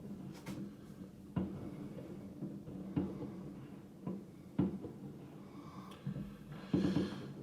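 New Year's fireworks going off in the distance: about six sharp bangs at uneven gaps, with a longer noisy burst near the end.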